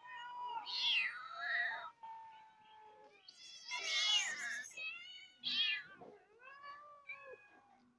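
Several hungry cats meowing for food, one call after another and some overlapping, the loudest about four seconds in.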